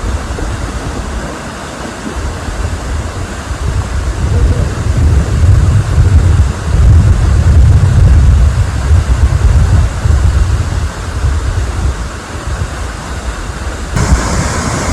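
Loud rushing of a waterfall under heavy low buffeting of wind and spray on the microphone, swelling and easing in gusts, with a sudden brighter shift in the sound near the end.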